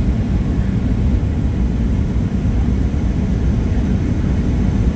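Steady low roar of a Boeing 737-800's CFM56 engines and rushing air, heard inside the passenger cabin as the jet descends on approach.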